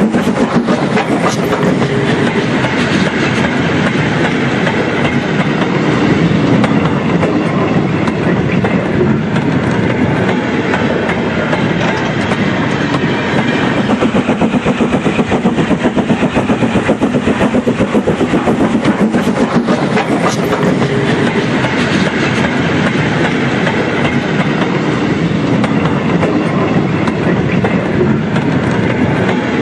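Model train running on the layout's track: a steady rattle with fast, even clicking of wheels over the rail joints.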